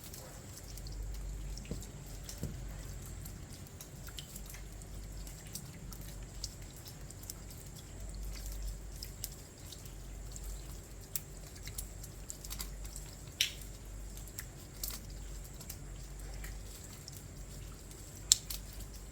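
Rain dripping at night: scattered, irregular drops ticking and pattering, over a faint steady hiss and low rumble, with a couple of sharper, louder drops near the end.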